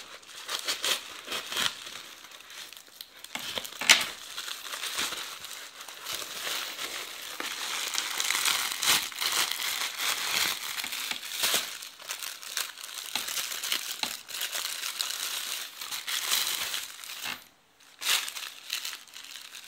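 Orange plastic courier mailer bag crinkling and crackling as it is handled and pulled open by hand, with a sharp crack about four seconds in and a brief pause near the end.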